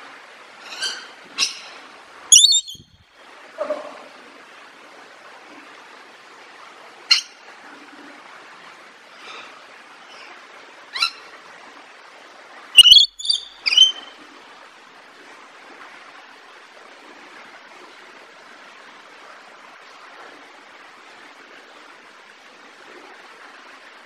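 Rainbow lorikeet giving short, high-pitched screeches and chirps, scattered through the first fourteen seconds and loudest at about two and a half and thirteen seconds in, over a steady background hiss.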